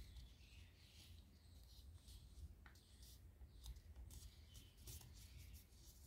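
Faint rustling and crisp little crinkles of origami paper being folded and creased by hand, scattered irregularly, over a low steady hum.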